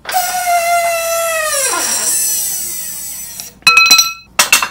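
A control arm bushing squealing as a hydraulic press forces it out of the control arm: one long squeal that slides down in pitch about two seconds in and fades. A few sharp metal clanks follow near the end, the first ringing briefly.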